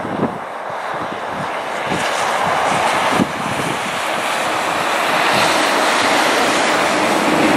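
GE C40-8 (Dash 8-40C) diesel-electric freight locomotive approaching with its train, its 16-cylinder diesel engine and the rolling train growing steadily louder. Wind buffets the microphone now and then with low thumps.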